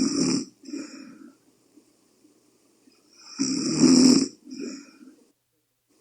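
A sleeping person snoring loudly: two long snores about three and a half seconds apart, at the start and around the middle, each followed by a shorter, softer one.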